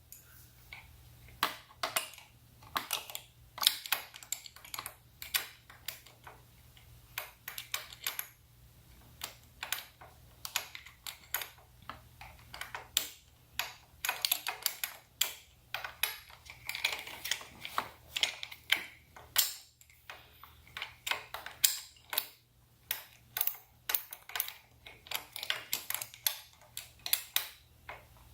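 Ratchet with a 10mm socket clicking in short irregular runs, with small metallic clicks and taps, as a mounting bolt is worked into place.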